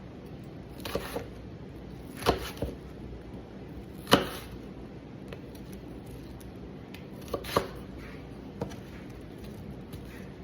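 Knife chopping onion on a cutting board: a handful of sharp, irregularly spaced knocks, the loudest about four seconds in, over a steady background hiss.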